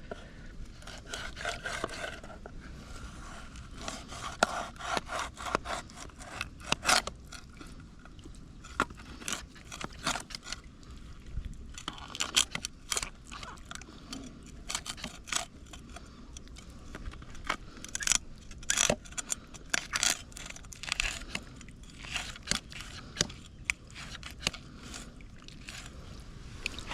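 Knife scraping and cutting a fish being cleaned: irregular scraping strokes mixed with short sharp clicks.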